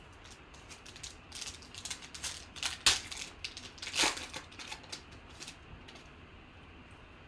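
Foil wrapper of a Panini Contenders football card pack crinkling and tearing as it is pulled open by hand, a run of crackles loudest about three and four seconds in.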